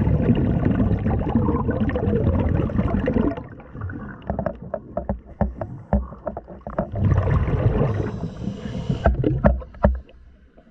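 Muffled underwater bubbling and rumbling at an underwater camera, in two long bouts with scattered knocks and clicks between them, dropping away near the end.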